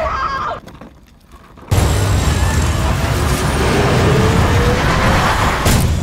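Film sound effects: a brief dip to quiet, then about two seconds in a sudden, loud, dense rushing rumble with a deep low end that holds steady, with a faint rising whine under it.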